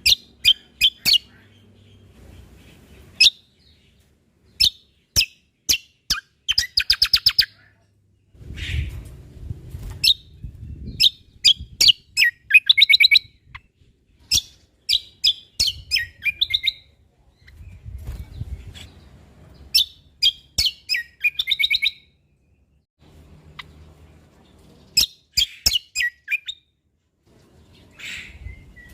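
A cucak kombo (kecial kombok) singing: sharp, quick chip notes in runs, broken by several rapid trilled phrases and short pauses, with a low rumble beneath at times.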